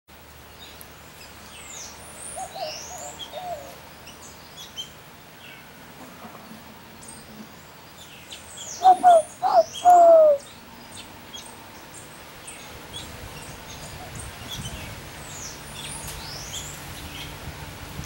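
Dove cooing: three loud low coos about nine seconds in, the last one longer and falling in pitch, with softer low notes earlier. Other birds chirp with short high sweeping calls throughout.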